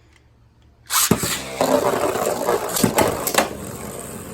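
Beyblade Burst tops launched into a plastic stadium about a second in: a sudden rush of whirring, then steady spinning with sharp clicks as the tops strike each other and the stadium walls.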